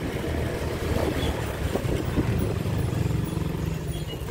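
Small motorcycle engine running steadily while riding, with road and wind noise on the microphone.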